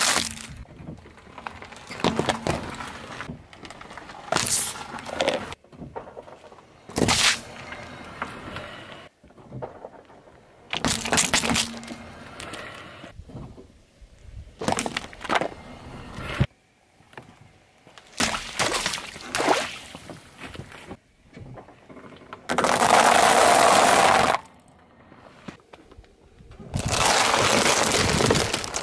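A series of objects crushed one after another under a car tyre: repeated cracking, crunching and bursting sounds a few seconds apart, ending with eggs in their tray cracking under the tyre.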